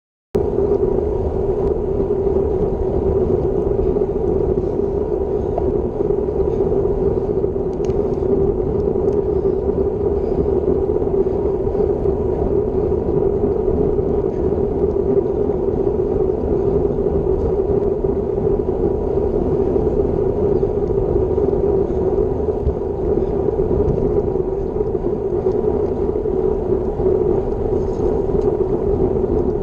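Wind rushing over a Garmin VIRB action camera's microphone while riding a road bike at about 30 km/h, mixed with tyre and road noise. It is a loud, steady droning rush that cuts in suddenly just after the start.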